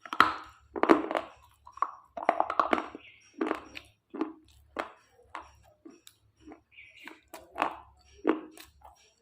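Close-miked crunching and chewing of brittle slate pieces in the mouth: irregular sharp crunches and crackles, a dozen or so, with the loudest bites at the start and again near the end.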